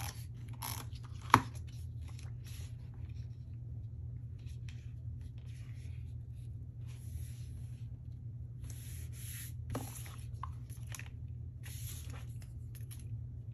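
Adhesive tape runner drawn along paper strips in short scratchy strokes, with hands rubbing and pressing paper down. There is a single sharp click about a second in, and a steady low hum runs underneath.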